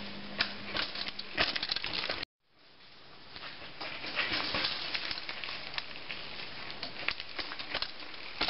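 Mountain bike tyres crunching and crackling over rock and dry leaf litter, with sharp knocks about a second and a half in as the bike drops off a rock ledge and lands. The sound cuts out abruptly a little after two seconds, then fades back in on more crunching as a rider passes close.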